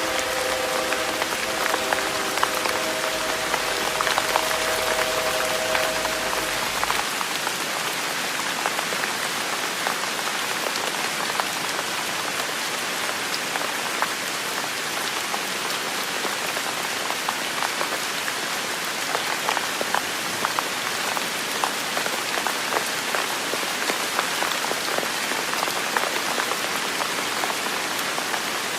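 Steady rain falling, with many individual drops ticking on nearby surfaces. A distant train horn sounds several notes at once as a held chord for about the first seven seconds, then cuts off.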